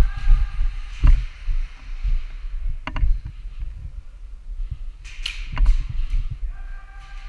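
Airsoft guns firing: a sharp snap about a second in, a close pair near three seconds and a quick cluster just past five seconds. Under them run constant thumps and rustling from the player's movement and gear on the microphone.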